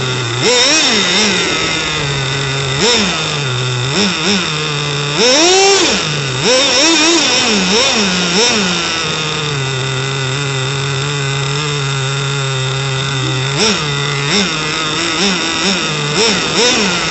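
HSP nitro RC car's small two-stroke glow engine with an aluminium tuned pipe, heard from the car itself. It alternates between a steady low running note and short revs that rise and fall back. There is one longer, higher rev about five seconds in, a steady stretch in the middle, and a run of quick blips near the end. A steady high whine runs underneath.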